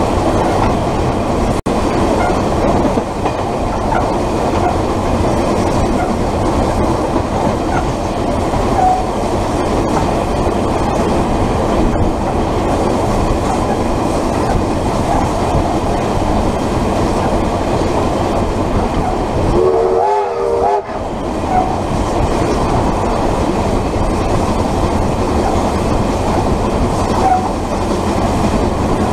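Train running along the track: a steady, loud rumble of wheels on rail, coupled close behind steam locomotive Ab 608's tender. About two-thirds through, a short wavering tone sounds for under a second.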